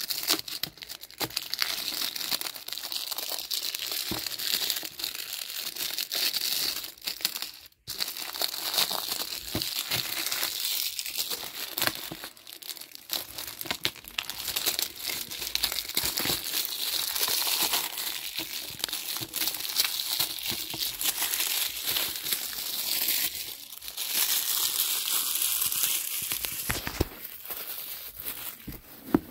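Plastic shrink wrap on a Blu-ray case crinkling as it is peeled and pulled off by hand: a dense run of crackles, broken off briefly about eight seconds in.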